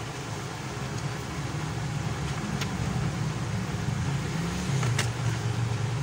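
Steady low mechanical hum with two faint clicks, one about two and a half seconds in and one near the end.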